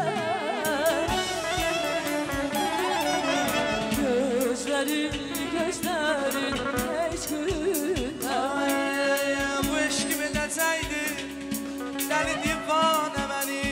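Live Azerbaijani song with a band: an ornamented, wavering vocal and clarinet melody over keyboard and a drum-kit beat.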